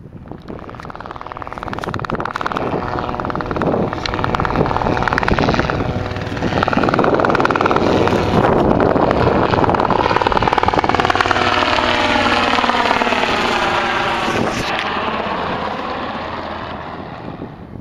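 An aircraft passing close by on take-off or landing: its engine noise builds, holds loud, then fades, with its tones falling in pitch as it goes past.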